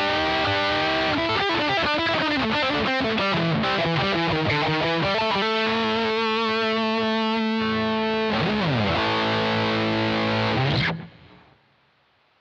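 Electric guitar played through a BOSS GT-1's Xtreme Lead preamp model at full gain: a heavily distorted lead line of fast runs with string bends and long held notes, and a slide down in pitch about eight seconds in. It cuts off about eleven seconds in, leaving only faint hiss.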